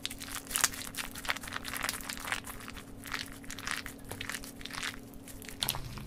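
Hands squishing and poking slime, making irregular small crackles and sticky pops, with a faint steady hum underneath.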